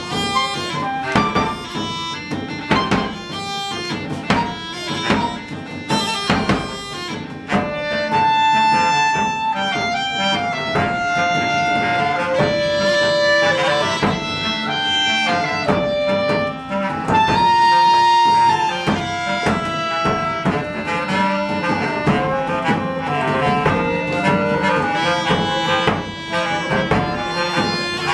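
Woodwind ensemble playing live: flutes and clarinets carry a melody over hand drum and percussion strokes, with longer held notes from about eight seconds in.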